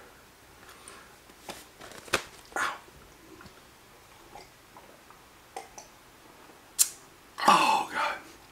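Coffee being drunk from a mug in a small room: scattered light clicks and knocks, then a louder, short noisy sip with an exhale near the end.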